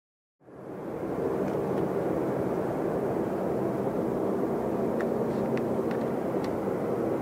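Steady noise of a Boeing 737-800 airliner with its CFM56 turbofan engines running, fading in about half a second in and holding an even level, with a faint steady hum joining partway through and a few light ticks.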